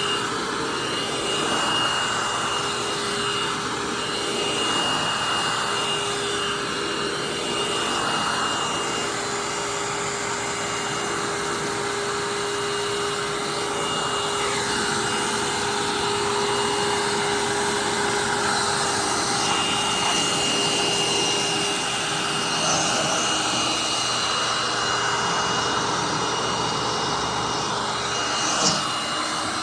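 2007 Hoover Tempo upright vacuum cleaner running steadily: an even rush of air with a high motor whine and a lower hum. A brief click comes near the end.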